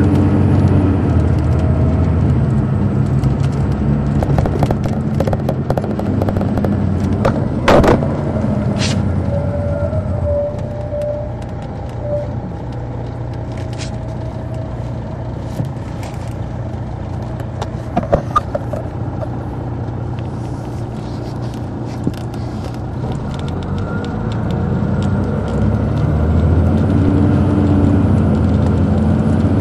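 Detroit Diesel Series 60 diesel engine of an MCI D4500 coach running under power, then easing off about ten seconds in and running quieter. It builds up again over the last few seconds. A sharp click comes about eight seconds in, and a few lighter clicks come later.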